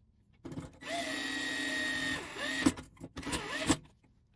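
Electric screwdriver driving in the screws that fasten a grounding plate: a brief spin, then a steady motor whine of about a second and a half that sags in pitch, and one more short run near the end.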